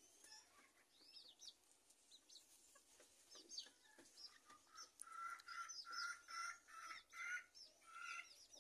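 Bantam hens feeding, faint: scattered high chirps throughout, and from about five seconds in a hen clucking in a run of short repeated notes, roughly two a second.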